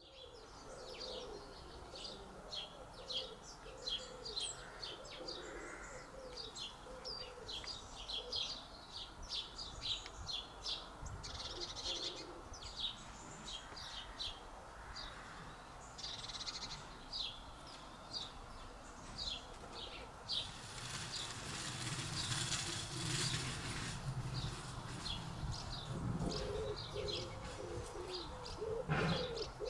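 Garden birds chirping: a steady stream of short, high, quickly repeated chirps, with low cooing calls at the start and again near the end. About two-thirds of the way through there is a few-second rush of noise.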